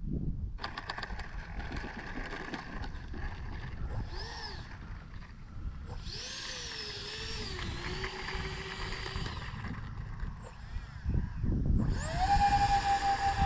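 Twin 50 mm electric ducted fans of an X-Fly A-10 RC jet whining in flight, the pitch wavering up and down in the middle and rising sharply near the end as the throttle comes up. Low rumble of wind buffeting the microphone underneath.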